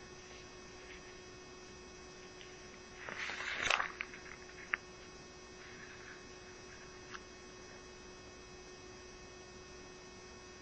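Steady electrical hum with faint hiss in the recording. About three seconds in comes a short rustling noise, then a single sharp click a second later.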